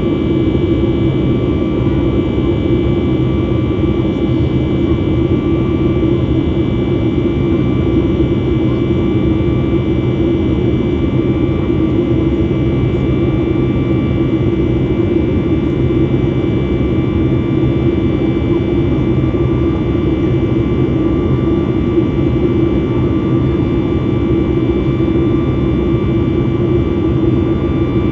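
Steady cabin noise inside a Boeing 737 MAX 8 in flight: a continuous rumble and rush of air, with the CFM LEAP-1B engines holding an even drone and a few steady hums.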